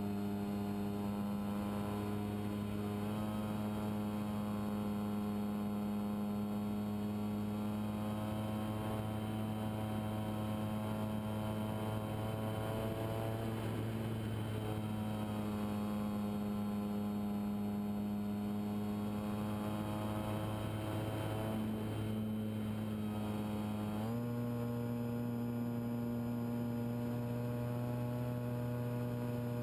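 RC model plane's motor heard through the onboard FPV camera: a steady buzzing drone that holds its pitch and then steps up abruptly about three quarters of the way through, as the throttle changes.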